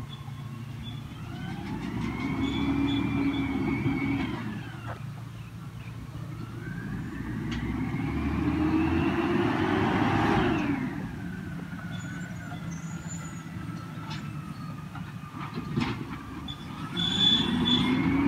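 Peterbilt 320 garbage truck with an Amrep automated side-loader body working carts down the street: its engine revs up and falls back three times, about every six to seven seconds, as it powers the hydraulic arm through each lift and dump. A few sharp knocks of carts come in between.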